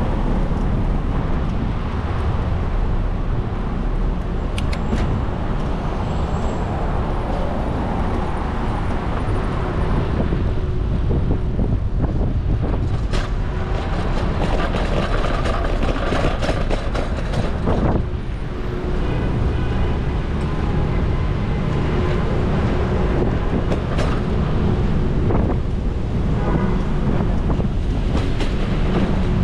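City street traffic heard from a moving bicycle: cars running close by, with steady wind rumble on the microphone and scattered sharp clicks and knocks as the bike rolls over rough pavement.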